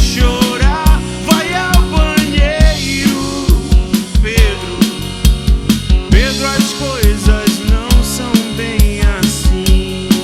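A rock band playing live: drum kit with a steady kick and snare beat, bass, and a melodic lead line that bends and slides in pitch.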